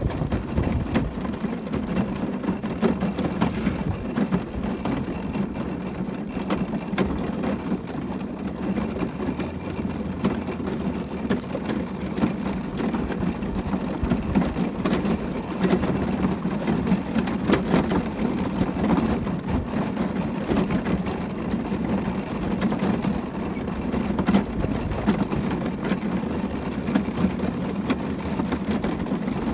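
Horse-drawn carriage on the move behind a trotting Hackney horse: a steady rumble of the wheels on a sandy grass track, mixed with hoofbeats and many short clicks and rattles from the carriage and harness.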